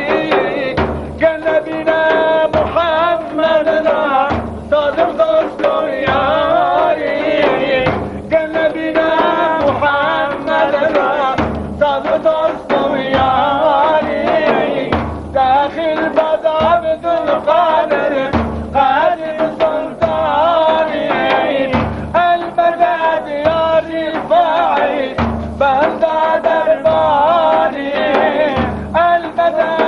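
Kurdish dervish zikir hymn: a wavering sung melody over large frame drums (daf). The drums strike a deep beat about every one and three-quarter seconds.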